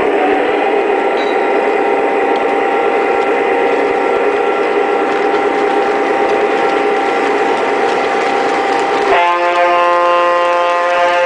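Lionel Legacy GP-7 O-gauge model diesel locomotive running on its track, its onboard sound system playing a steady diesel engine sound over the mechanical running noise of the model's wheels and motor. About nine seconds in, a chord-like horn sounds abruptly and holds for a couple of seconds.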